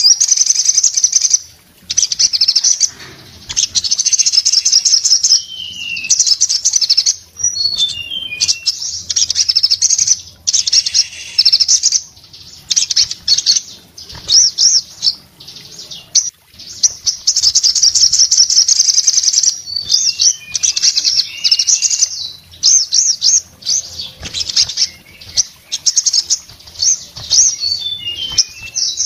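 Male olive-backed sunbird singing hard: long bouts of rapid, high-pitched twittering trills with short breaks between them. A few runs of falling notes are mixed in, along with wing flutters.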